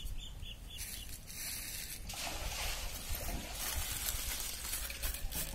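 Faint background noise: a steady low hum under a soft hiss that grows stronger about two seconds in.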